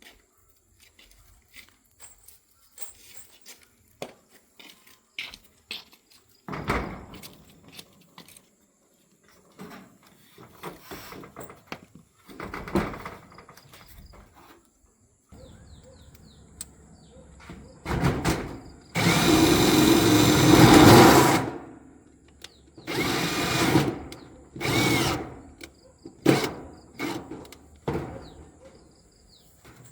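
Power drill running in short bursts, the longest about two and a half seconds, with knocks and handling noises between.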